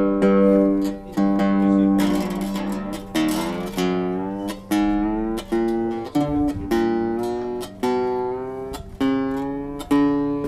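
Bulas A-style octave mandolin being played: chords struck about once a second, each left to ring before the next.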